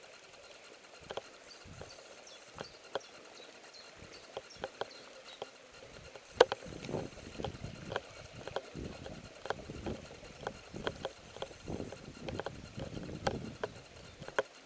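Irregular footsteps on forest ground, faint crunching steps about one or two a second, with one sharper knock about halfway through.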